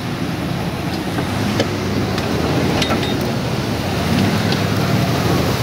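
Jeep engines running steadily under load as a Cherokee XJ tows a stuck Grand Cherokee ZJ out of the mud, with a rushing noise over them.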